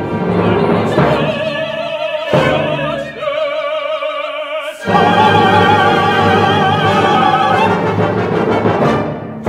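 Tenor and contralto singing an operatic duet with orchestra, the voices wavering with vibrato. About five seconds in they launch into a loud long held note together, which fades near the end.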